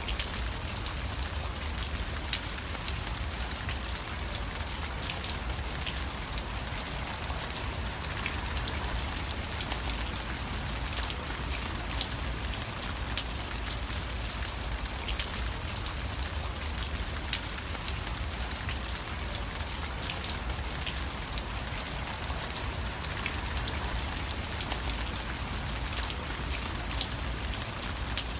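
Steady rain falling, with many separate drops striking sharply over an even wash and a low rumble beneath.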